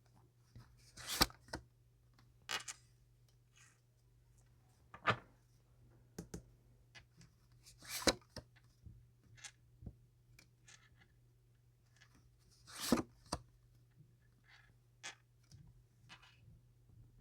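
Tarot cards being handled and laid out on a table: scattered short paper rustles and snaps, a few of them louder, with faint ticks in between, over a steady low hum.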